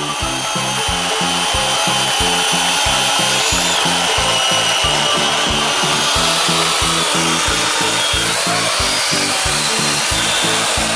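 Corded electric chainsaw running steadily as it cuts into a tree trunk: an even motor whine with the chain rasping through wood. Background music with a steady beat plays underneath.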